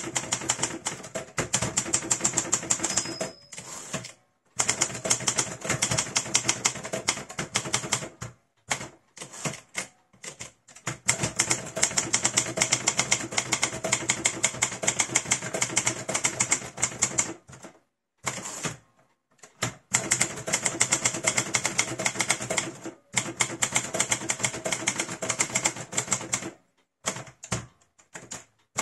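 1948 Hermes 2000 manual portable typewriter being typed on: fast runs of key strikes, the typebars hitting the platen, broken by short pauses. There is one short high ring about three seconds in.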